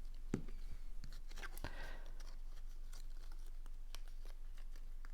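Cardstock pieces being handled on a work surface: light paper rustling with a few soft taps and clicks, over a faint low hum.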